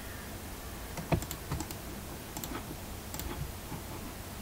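Scattered, fairly faint clicks of computer mouse buttons and keys, about ten in all, several in quick pairs, the sharpest about a second in.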